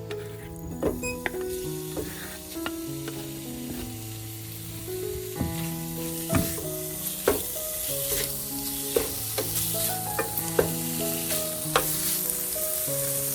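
Food sizzling in a frying pan while a utensil stirs it, knocking against the pan in sharp clicks every second or so; the sizzle grows louder from about four seconds in. Background music with held notes plays throughout.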